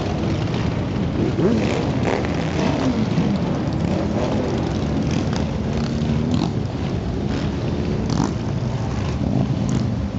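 A dense procession of many motorcycles, their engines running together in a continuous steady mass of sound, with individual bikes revving up and down within it.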